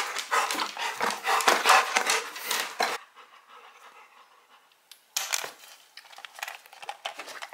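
Golden retriever panting for about three seconds. After a short pause it chews a crunchy dog treat in a run of short crackling bites.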